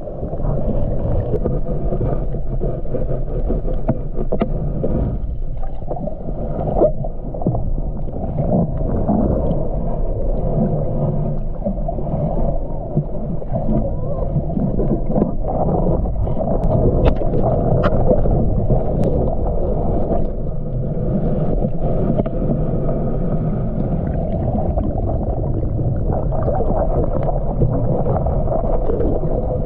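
Muffled underwater noise picked up by a submerged camera: a dense low rush of moving water with scattered clicks and knocks.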